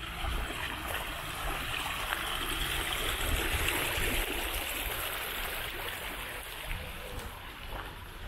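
A small stream flowing: a steady rush of running water that swells slightly midway.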